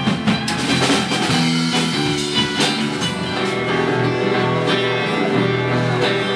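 Live band playing an instrumental passage, guitars strumming sustained chords over a steady beat, with no singing.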